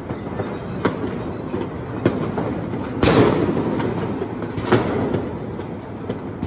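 Firecrackers and fireworks going off around a neighbourhood: a continuous rumbling crackle with separate sharp bangs every second or so, the loudest about three seconds in.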